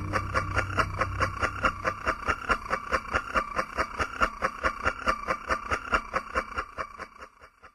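Closing bars of a psychedelic trance track: the bass drops out about two seconds in, leaving a fast, even ticking percussion pattern that fades out to silence near the end.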